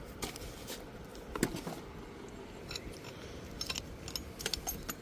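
Scattered light clinks, taps and rattles of metal and plastic tools and junk being picked up and shifted by hand in a pile, a few more of them close together near the end.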